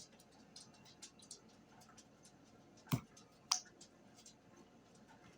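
Faint clicking and crackling of slime being squeezed and worked in the hands, with two sharper knocks about three seconds in, half a second apart.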